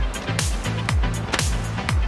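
Background electronic dance music with a steady kick drum about two beats a second, a repeating bass line and sharp cymbal hits.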